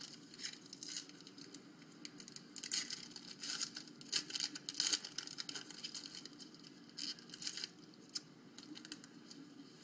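A trading card pack wrapper being torn open and crinkled by hand, with irregular crackles and rustles, busiest a few seconds in and again briefly near the end.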